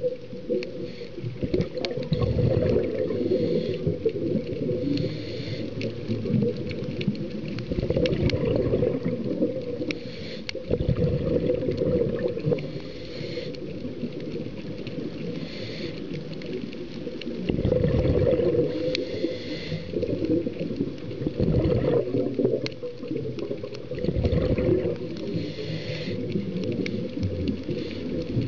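Scuba diver breathing through a regulator underwater: a hiss on each inhale and a low rush of exhaled bubbles, repeating every few seconds.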